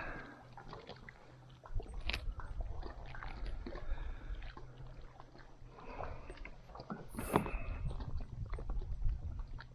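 Scattered light knocks and clicks of handling on a fishing kayak over a low rumble that comes in about a second and a half in.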